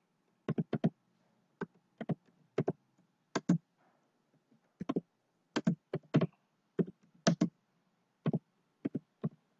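Typing on a computer keyboard: about twenty separate keystrokes at an uneven pace, some in quick pairs, with short pauses between.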